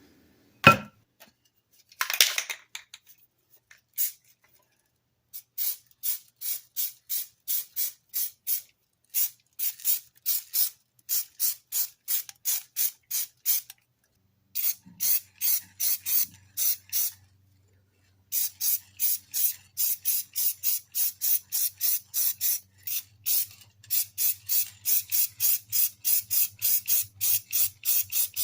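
Hand sanding on the cast iron side of a Sargent 409 hand plane body: sandpaper rasping back and forth in steady strokes, about two a second, in runs with short pauses, to sand away numbers etched into the side.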